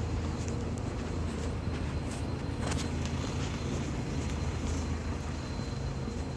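Steady low outdoor rumble with an even background hiss and a few faint light clicks.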